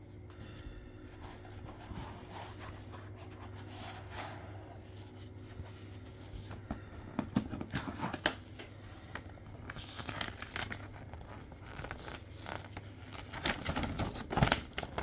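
Packaging being handled: the foam insert and cardboard box rubbing and scraping, then a folded paper sheet picked up and unfolded with crinkling and rustling. The paper unfolding near the end is the loudest part.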